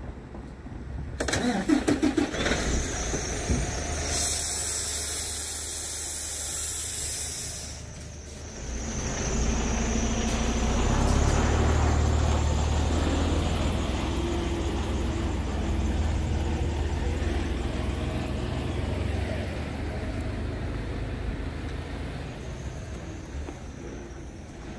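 Scania R tractor unit's diesel engine starting: a few clicks and a short rattle, a high hiss of air for about three seconds, then from about eight seconds in a low engine rumble that is loudest soon after and slowly eases toward idle.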